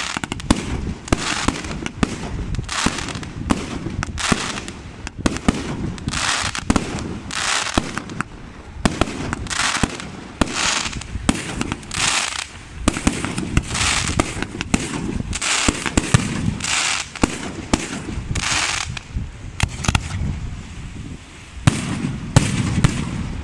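Aerial fireworks shells bursting one after another in a display: sharp bangs throughout, with short hissing bursts nearly every second.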